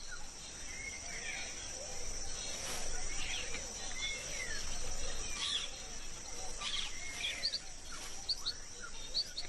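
Tropical rainforest ambience: a steady high insect drone, with scattered short bird chirps and whistled calls that come in quicker, higher chirps near the end.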